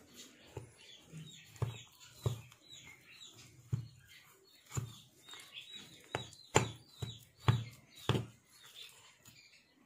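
Metal spoon stirring a stiff flour-and-fenugreek mixture in a ribbed glass bowl, knocking and scraping against the glass in irregular strokes. The strokes come every half second to a second, and the loudest ones fall in the second half.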